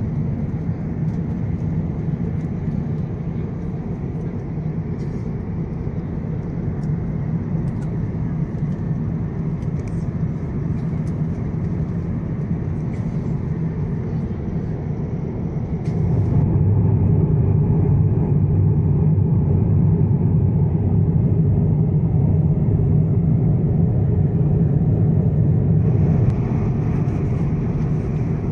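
Steady low cabin noise inside an Airbus A350-900 in flight, the hum of engines and airflow. It gets louder a little past halfway through.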